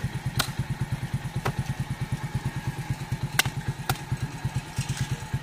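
Four or so sharp chops of a curved knife cutting into a toddy palm fruit, the loudest about three and a half seconds in, over a small engine idling with a fast, even throb.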